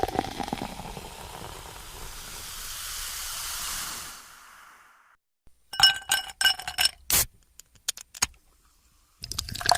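Fizzing hiss of a freshly opened can of carbonated soda, swelling and then fading out about five seconds in. About six to eight seconds in comes a quick series of sharp, ringing metallic clicks and clinks. Near the end a can cracks open again with a new rush of fizz.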